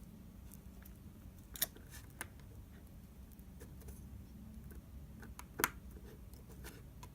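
Faint handling of a phone and small tools: scattered light clicks and taps, with two sharper clicks about one and a half seconds in and about five and a half seconds in.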